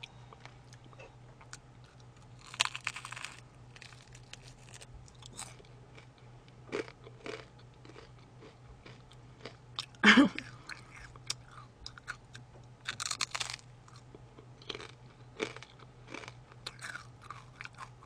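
Close-miked crunching and chewing of crispy fried chicken and french fries: scattered crisp bites and mouth clicks, with louder bursts of crunching about three and thirteen seconds in. The loudest moment is a short sharp burst about ten seconds in.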